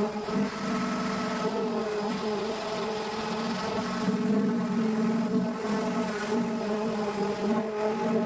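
Power sander running steadily against a car's painted panel, a buzzing hum that wavers slightly as pressure on it changes, sanding down failing paint before a repaint.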